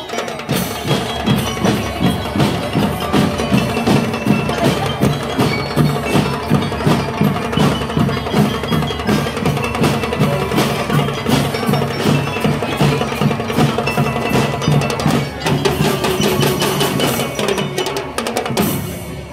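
Drum and lyre band playing: bell lyres ringing out a melody over a steady beat of snare and bass drums. The playing ends with a final loud hit near the end.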